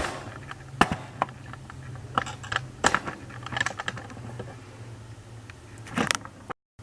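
Light metallic clicks and clinks of a cuckoo clock's chain and weights being handled, several sharp ones scattered through, over a faint steady low hum.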